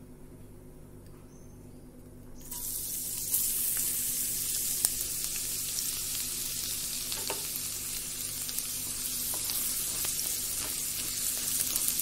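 Chopped garlic dropped into hot oil in a non-stick wok, starting to sizzle suddenly about two and a half seconds in and sizzling steadily on. A few light clicks come from a wooden spatula stirring it in the pan.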